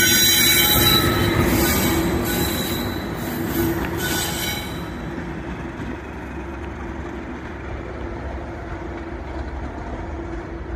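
Class 97/3 diesel locomotive, a rebuilt Class 37 with an English Electric V12 engine, running away from the listener, its engine note fading steadily. High-pitched wheel squeal over the first half dies away about halfway through.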